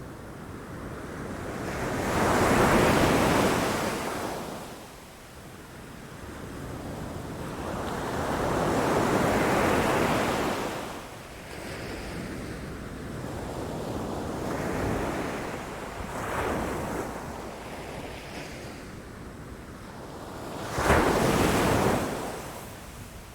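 Sea waves breaking against rocks and a shore: several washes of surf swell and fade, the biggest about 2 to 4 seconds in and 8 to 11 seconds in, and one wave hits suddenly and loudly about 21 seconds in.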